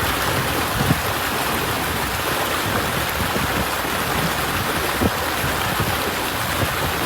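Heavy rain with running water, a steady unbroken rushing hiss.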